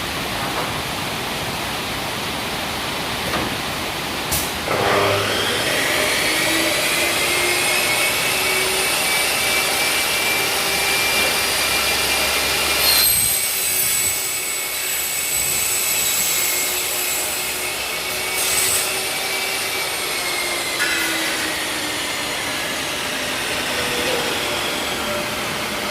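Motor of a 355 mm aluminium cutting saw running with a steady whine. Its pitch rises as it spins up about five seconds in, and the sound changes about halfway through.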